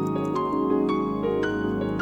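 Background music: plucked, harp-like notes over a sustained chord, a new note about every half second.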